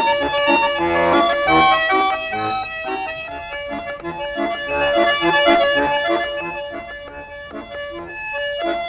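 Bayan (Russian button accordion) playing a fast, lively dance tune: quick melody notes over a regular bass-and-chord accompaniment.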